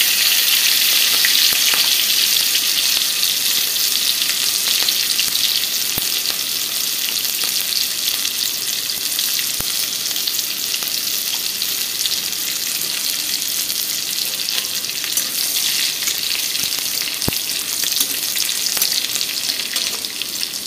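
Chopped green chillies sizzling in hot oil in a steel kadhai: a steady frying hiss that eases slightly, broken by a few sharp clicks.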